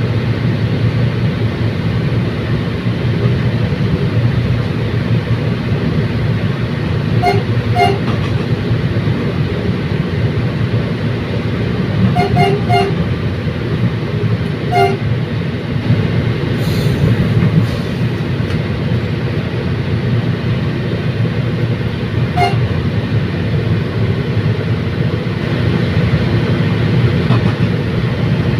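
Bicol Commuter train running along the track with a steady low rumble, its horn giving short toots several times: once at the start, twice about seven seconds in, three quick toots about twelve seconds in, then single toots later on.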